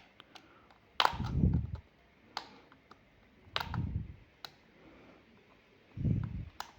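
Sharp plastic clicks and taps from handling and prying at a small plastic security camera's housing, with three dull low thuds: about a second in, near four seconds, and near six seconds.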